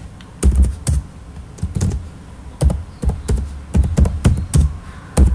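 Typing on a computer keyboard: a dozen or so keystrokes in short, irregular runs, each a sharp click with a dull thud.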